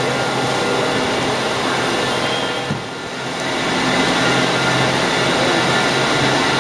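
Steady running noise of a powered-up Baltimore Metro heavy-rail subway car, a hum with several steady tones; it drops briefly about three seconds in, then comes back up.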